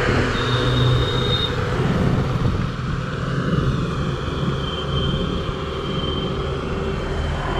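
Steady low vehicle engine rumble with an even hiss of rain and wet road over it.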